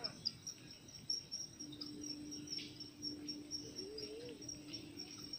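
Crickets chirping in a high, rapidly pulsing trill, with a faint low steady hum joining about a second and a half in.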